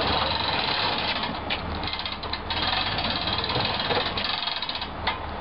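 An engine running steadily with a rapid, even rattling clatter.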